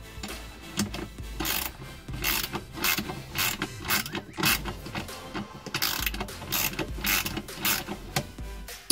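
Metal ratchet clicking in repeated short strokes, about one every half second to second, with brief pauses.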